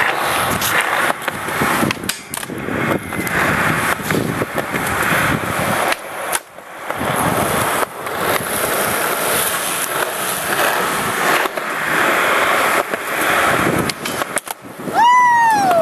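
Skateboard wheels rolling on concrete, broken by several sharp clacks of the board popping and landing. Near the end comes a loud squeal that falls in pitch as the board slides along a metal flat rail.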